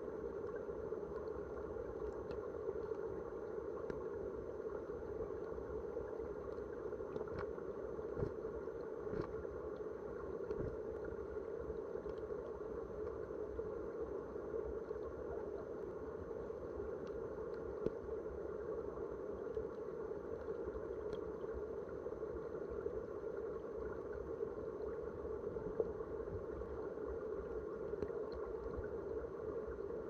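Creek water running, heard from a camera submerged on the stream bed: a steady, muffled rush with a few faint clicks scattered through it.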